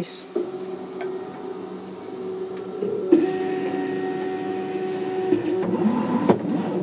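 Stepper motors of a homemade 3D printer driving the print head across the frame, a steady whine that changes pitch each time the move changes. There is a sharp click about three seconds in, and the pitch shifts again near the end.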